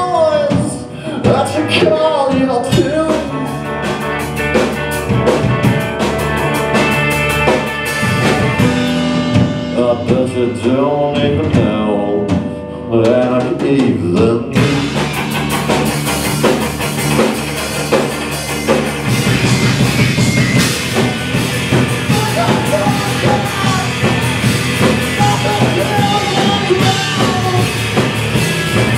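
Live rock band: a lead singer over electric guitar, bass guitar and drum kit. About halfway through, the band comes in harder and the sound turns brighter and fuller.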